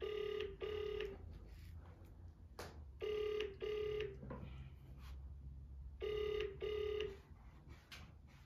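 Outgoing-call ringback tone from a mobile phone on loudspeaker: a double 'ring-ring' pulse repeated three times, about every three seconds, waiting for the other party to answer.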